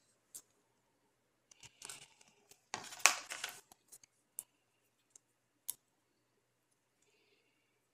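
Clear plastic sleeve crinkling as a wrapped comic booklet and disc case are handled. The rustle comes in two spells, the louder one about three seconds in, with a few light sharp clicks afterwards.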